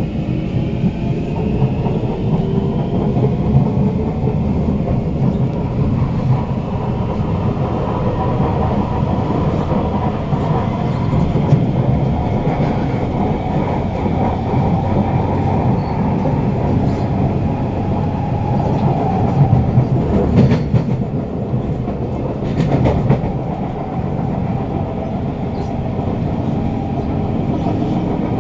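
Onboard a Kawasaki Heavy Industries C151 metro train (PMSM variant): the permanent-magnet traction motors give a robotic-sounding whine that climbs in pitch as the train pulls away and gathers speed, then settles. Under it the wheels rumble steadily on the rails, with a few sharp clicks about twenty seconds in.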